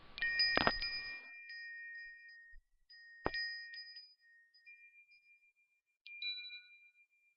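Bell-like chime notes struck a few times: a cluster near the start, one about three seconds in and one near the end, each ringing on as a high, clear tone before fading.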